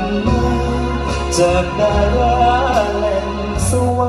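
A male vocalist singing live into a microphone over a band, with held bass and keyboard chords and a slow melodic line. A cymbal swells twice, about a second in and near the end.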